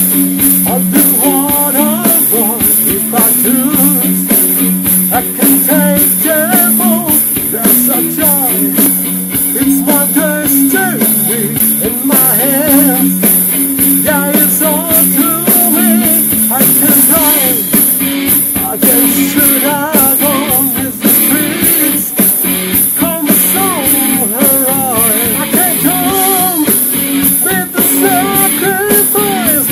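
Hard rock song with electric guitar and drums, and a voice singing the melody over them.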